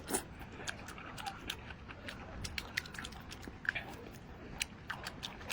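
Close-up eating sounds of Buldak spicy fire noodles: irregular wet mouth smacks, chewing and small clicks, several a second.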